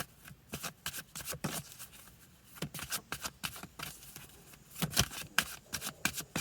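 Deck of cards shuffled by hand: irregular soft flicks and slaps of the cards, a burst of louder ones about five seconds in.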